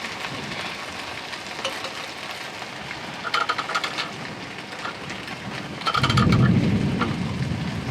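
Steady hiss of heavy rain on the tent and tarp, with a few light metal clinks about three and a half and six seconds in. A louder low rumble joins about six seconds in.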